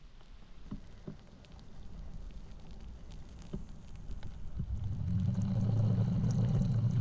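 Low wind rumble on the camera's microphone while skiing in a snowstorm, growing louder over the last couple of seconds.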